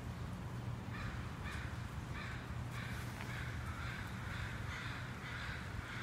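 A crow cawing repeatedly: a string of short calls starting about a second in, roughly two a second, over a steady low hum.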